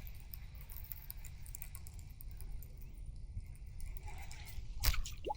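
Low rumble of wind on the microphone with faint light ticking throughout, and a sharper click near the end.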